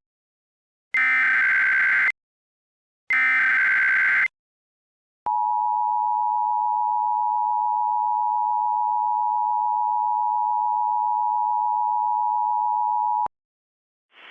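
Emergency Alert System header: two harsh digital data bursts about a second long each, then the steady two-tone EAS attention signal held for about eight seconds and cut off abruptly.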